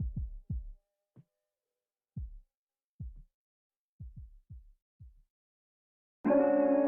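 Background music: a run of short, deep thumps falling in pitch at an uneven beat, like a heartbeat, then about six seconds in a fuller passage with plucked guitar comes in.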